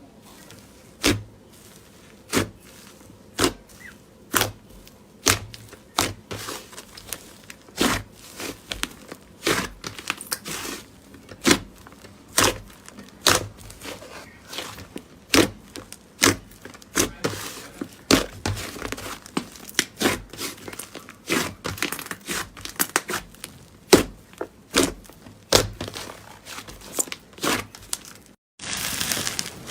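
Slime being pressed and worked by hand, giving a run of sharp wet pops and clicks about once a second that come closer together later on. Near the end it cuts to a denser, steady crackle.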